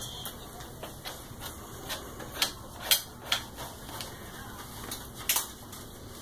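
A handful of sharp clicks and taps of small hard objects being handled, about four of them, the loudest a little before halfway and another near the end, over a low steady room background.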